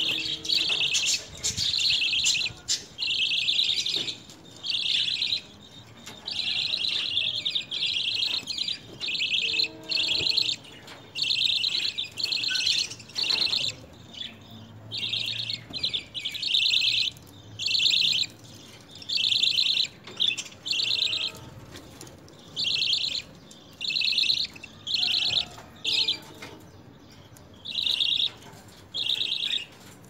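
A flock of budgerigars chirping in repeated shrill bursts of rapid chatter, about one burst a second with short gaps between.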